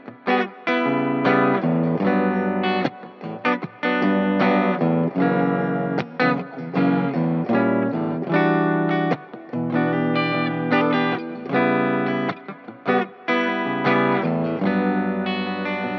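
Gibson Les Paul Tribute electric guitar playing chords and short phrases through an effects chain with some distortion. The phrases break off briefly every second or so.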